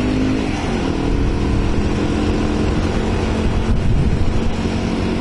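Motorcycle engine running steadily in gear while riding at around 35 km/h and gently gaining speed, under wind and road noise.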